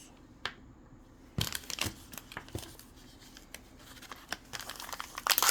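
Thin plastic packaging being crinkled and torn open by hand, with scattered small clicks of plastic pieces being handled, busiest and loudest near the end.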